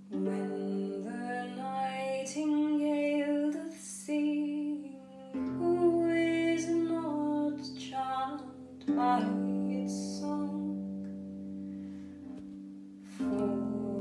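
A woman singing a medieval French courtly song and accompanying herself on the harp with slow plucked chords; new low chords come in every few seconds under the voice.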